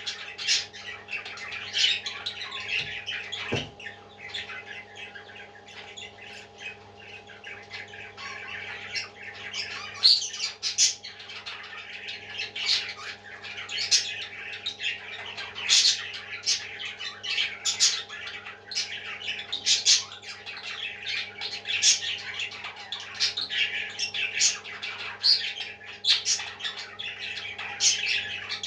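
Parrot chicks squawking and chirping without a break, with a steady low hum underneath.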